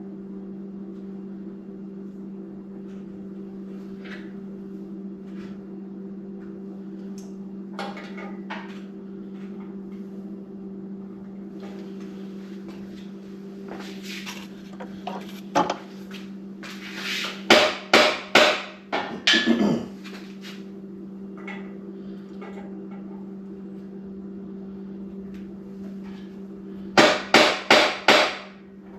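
Hammer blows on metal in two quick runs of about five strikes, one around the middle and one near the end, with scattered lighter clinks between and a steady low hum underneath.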